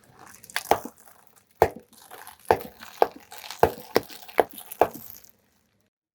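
Crunchy objects being crushed under a car tyre: about nine sharp cracks with crumpling and crackling between them, stopping about five seconds in.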